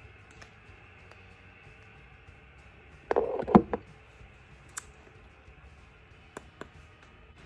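Small handling sounds while finishing a liquid matte lipstick: a short, loud cluster of clicks and a smack about three seconds in, then a few faint single clicks, over a low steady room hiss.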